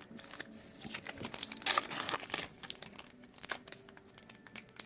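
Crinkling of a plastic-foil trading-card booster pack wrapper, in irregular bursts that are loudest about two seconds in, with the rustle of cards being handled.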